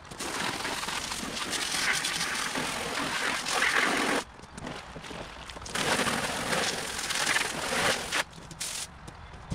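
Water spraying from a garden hose nozzle, rinsing wet concrete off tools and a plastic mixing tub. It comes in two bursts: one of about four seconds, then after a short pause another of about two and a half seconds that cuts off suddenly.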